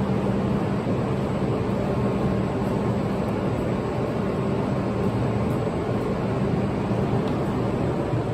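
Steady hum and rushing noise of an E5-series Shinkansen train standing at the platform with its onboard equipment running, an even drone with a low hum under it.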